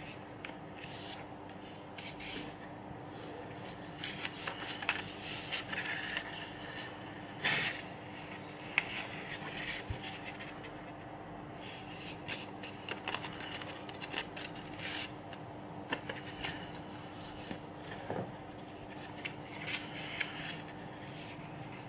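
A sheet of origami paper being folded and creased by hand: soft rustling and sliding, with brief crisp strokes at irregular intervals as fingers press and run along the folds.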